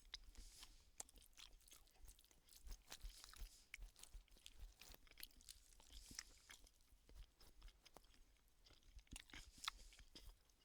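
A person chewing a mouthful of chicken tikka ready meal: faint, quick, irregular wet mouth clicks and smacks.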